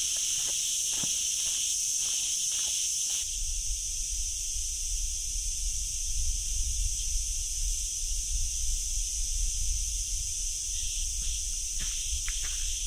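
Chorus of cicadas buzzing steadily at a high pitch. Footsteps crunch on a dirt path in the first three seconds and again near the end, and a low rumble sets in about three seconds in.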